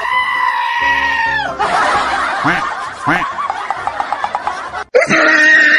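Comic sound effects edited over the video. A held pitched tone slides down and stops about a second and a half in. A noisy, warbling stretch follows, then cuts off abruptly near the end as a new pitched sound begins.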